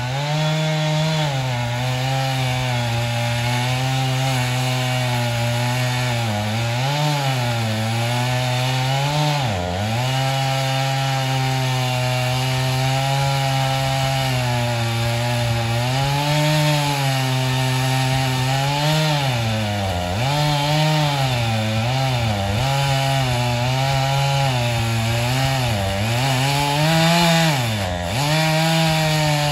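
Chainsaw running at full throttle, cutting into a standing tree's trunk to fell it. Its steady pitch dips briefly several times as the saw bogs in the cut, most sharply about ten seconds in and again near the end.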